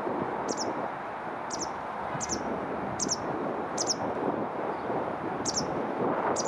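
A small bird chirping: short, high double chirps repeated about once a second, over a steady background rumble.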